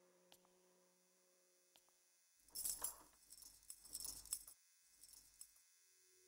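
A bunch of metal keys jangling in a hand, in a cluster of bright jingles lasting about two seconds from about two and a half seconds in, then a brief softer jingle about five seconds in.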